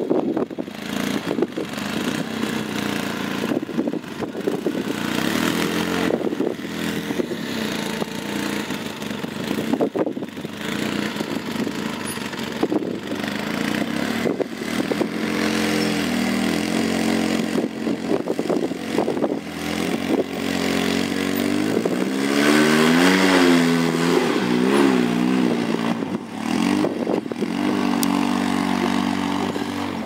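Arctic Cat Wildcat side-by-side's engine working hard as the machine crawls up a steep rock ledge. The revs rise and fall in surges throughout, and the strongest bursts of revving come about three-quarters of the way through.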